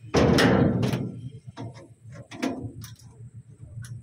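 Metal clatter of a hammer and steel pipe handled on a steel truck bed: one loud clang just after the start, then a few lighter clinks and taps.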